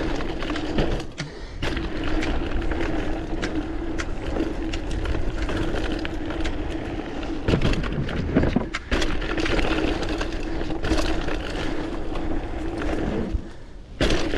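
Mountain bike being ridden down a dirt trail: a steady rush of tyres over dirt with frequent clicks and rattles from the bike, and a steady low hum. The noise drops away briefly about a second in, near the middle and just before the end.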